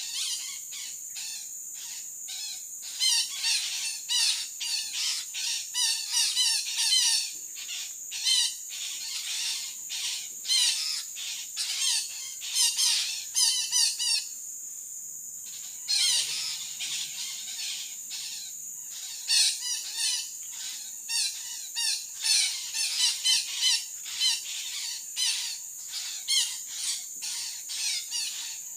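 Parakeets squawking in quick runs of repeated calls, one run after another, with a short lull about halfway through. A steady high insect drone runs underneath.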